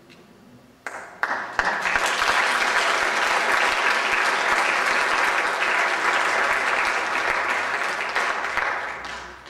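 Audience applauding: a few scattered claps about a second in, swelling to steady applause, then dying away near the end.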